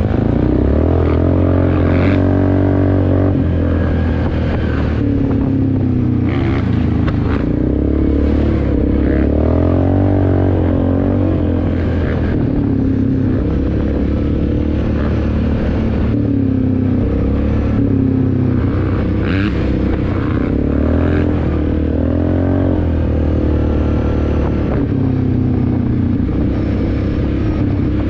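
Yamaha Grizzly 400 ATV's single-cylinder four-stroke engine running under way on a rough dirt trail, its pitch rising and falling with the throttle. Occasional short knocks and rattles sound over the engine.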